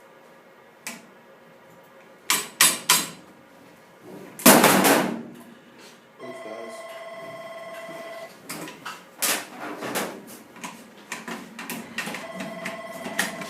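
Sharp metal clicks and one heavy clank from handling the M240 machine gun's parts, followed by a telephone ringing twice, each ring about two seconds long, with more clicks between the rings.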